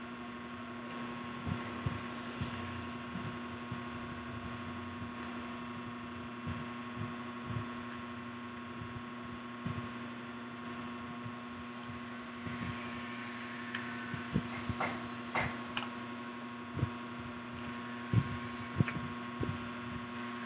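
Steady electrical hum under scattered short clicks and knocks of people eating fried street food by hand: chewing and picking up fries and calamares. The clicks come more often in the second half, with the sharpest near the end.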